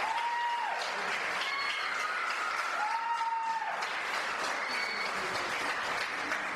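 Theatre audience applauding, with two long, high held calls from the crowd rising over the clapping.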